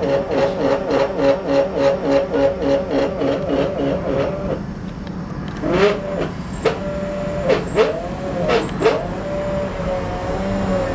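CNC stepper motors whining at their step rate as the interface drives them: a steady whine pulsing about four times a second, then, after about five seconds, several quick rising and falling whines as the motors speed up and slow down, settling into a steady, slightly wavering whine near the end.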